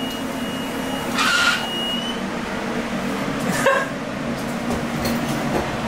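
Handheld fire extinguisher discharging, a loud steady hiss, with two short yelps over it, about a second in and near the middle.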